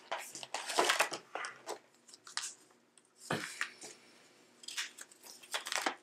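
Paper and thin cardboard packaging inserts rustling and crinkling as they are pulled out of a flashlight box and handled, in irregular bursts with a sharper sound about three seconds in.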